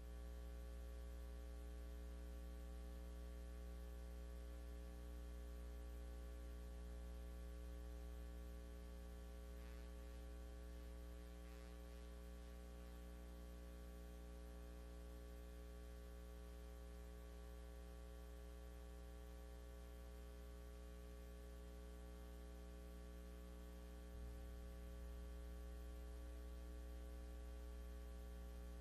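Steady low electrical mains hum with faint hiss, from the broadcast audio feed, with no speech.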